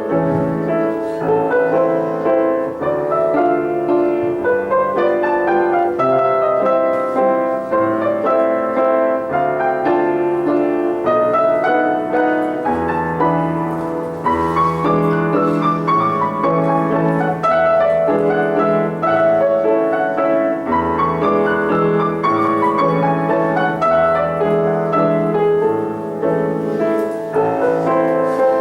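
Solo acoustic piano playing a classical piece: a flowing melody over low bass notes, continuous and even in loudness.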